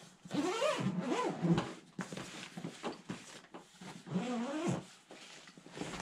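Zipper on a black tactical backpack pouch being pulled open in two pulls, the first about a second and a half long and the second shorter near the end, its pitch rising and falling with the speed of the pull.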